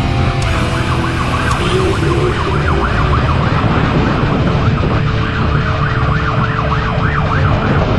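Police siren in a fast up-and-down yelp, starting about two seconds in and running to near the end, over steady vehicle engine and road noise.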